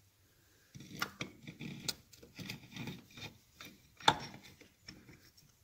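Steel transmission gear cluster being worked by hand into a Triumph 650 four-speed gearbox shell: metal gear teeth and shafts clicking and scraping against each other, starting about a second in, with one sharper knock about four seconds in.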